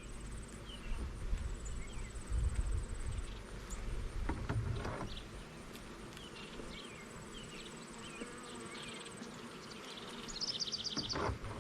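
Honeybees buzzing around an opened hive, a steady hum of many bees that are not happy at the disturbance. Low rumbling bumps come through in the first half, and a short rapid high trill sounds near the end.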